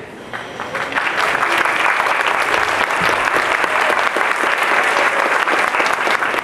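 Theatre audience applauding: the clapping starts about half a second in, builds to a steady dense applause within a second, and tapers off at the very end.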